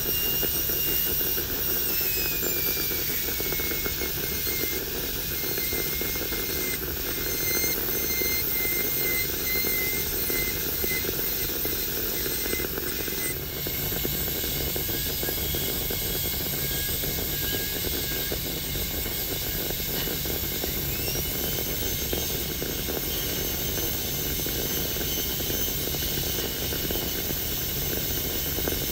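High-speed air-turbine dental handpiece running with a steady high-pitched whine and hiss as its bur cuts into a plastic typodont tooth. The whine drops in pitch a couple of seconds in and rises again about two-thirds through, as the bur's load on the tooth changes.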